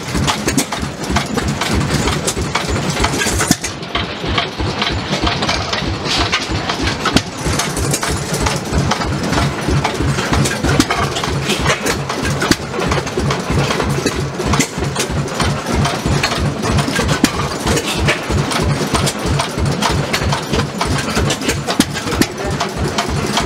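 Vintage stationary engines running, a rapid, regular stream of exhaust beats.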